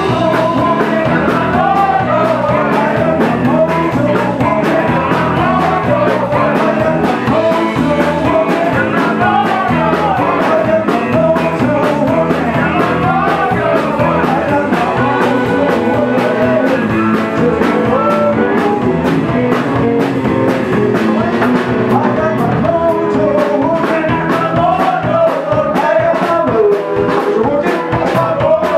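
Live blues band playing: harmonica over electric guitar and drum kit, with a man singing.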